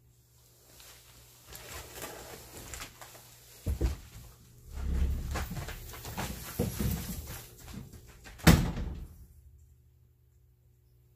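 Dogs moving about on a plastic tarpaulin floor: irregular rustling and crinkling of the tarp with paw scuffs, a thud about four seconds in and a louder sharp bang at about eight and a half seconds.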